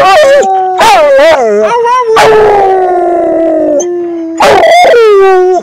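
Dog howling and 'talking' in a series of wavering, warbling howls, several short ones, then a long howl starting about two seconds in that slowly falls in pitch, and another rising call near the end.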